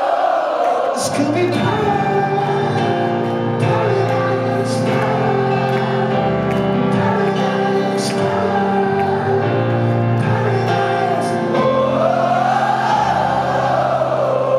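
Live rock band music: sustained keyboard and band chords, with a mass of voices singing a rising-and-falling line at the start and again near the end.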